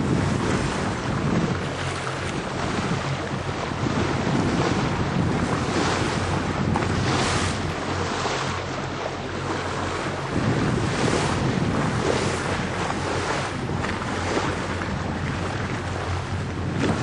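Wind buffeting the microphone over the rush of water along a moving boat's hull, with a steady low engine drone beneath; the noise swells and eases in gusts.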